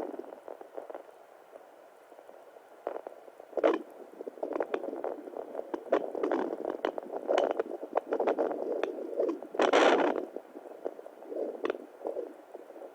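Fetal Doppler output through its small speaker: irregular whooshing swells and scratchy crackles, with no steady beat. There is a quieter stretch about a second in, and a loud scratchy burst near the end.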